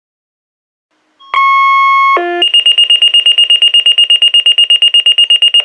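Motorola voice pager in its desktop charger being toned out. A steady paging tone sounds for just under a second, then a brief lower tone, then a rapid high-pitched alert beeping at about nine beeps a second.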